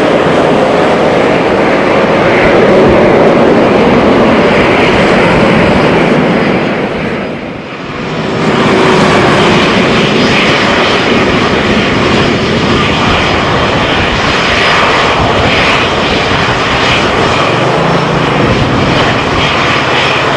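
Jet engines of an Airbus A320 (CFM56) running as the airliner slows on the runway after touchdown, fading out about eight seconds in. Then the CFM56-3 engines of a Boeing 737-500 run at taxi power as it rolls along the runway.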